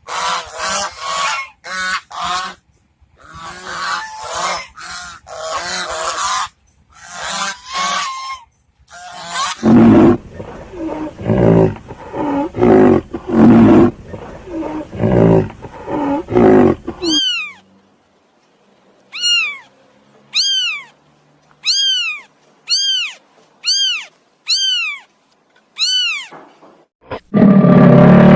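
A run of different animal calls one after another: first short, honking calls, then louder, deeper calls, then about nine clean whistled chirps, each falling steeply in pitch. A loud, steady noise sets in near the end.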